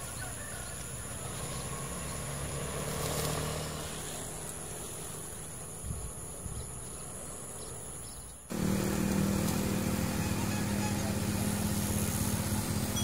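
Motorcycle engine running steadily at low speed close by, with wind rush. About two-thirds of the way through, the sound cuts off abruptly to a louder, steadier engine hum.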